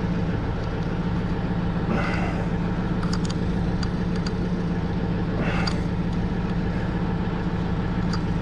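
An engine running steadily at idle, a low even hum, with two brief scrapes of handling about two seconds in and again past the middle.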